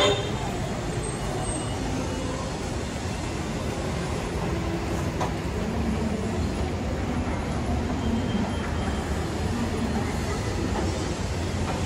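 KRL Commuter Line electric train running, a steady rumble and hiss of wheels on the track.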